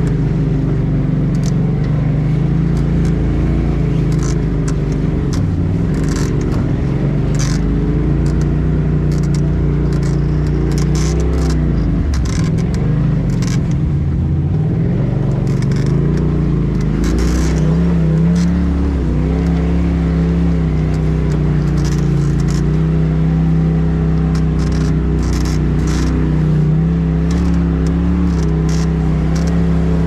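Polaris RZR Turbo S side-by-side's turbocharged twin-cylinder engine running, its pitch rising and falling with the throttle as it crawls through mud and ruts. Short scrapes and rustles come through again and again over it.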